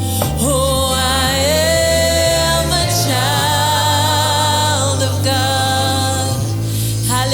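Gospel worship song: sung vocals holding long notes with vibrato over a steady bass accompaniment.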